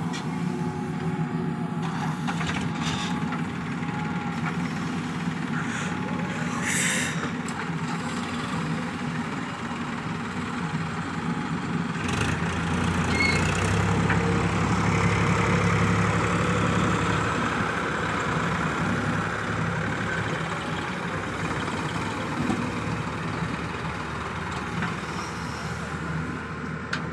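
Diesel engines of a JCB 3DX backhoe loader and a farm tractor running steadily together, the low engine drone growing louder from about twelve seconds in while the backhoe digs. A brief hiss sounds about seven seconds in.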